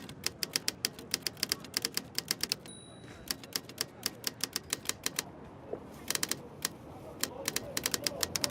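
Typewriter keys striking in quick runs of several strokes a second, broken by brief pauses, over low street hubbub.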